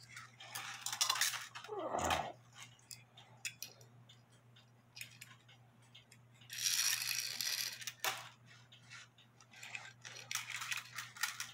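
Metal link chain of a cuckoo clock rattling and clicking as it is fed down through the holes in the wooden movement platform, in scattered short clicks with a longer burst of rattling and handling noise about seven seconds in. A faint steady hum runs underneath.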